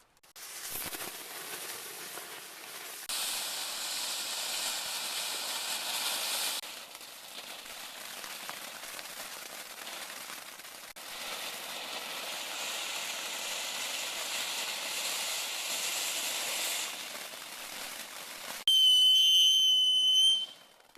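Small consumer fireworks fountain spraying sparks with a steady hiss that swells twice. Near the end a firework gives a loud, shrill, steady whistle for about two seconds, then cuts off.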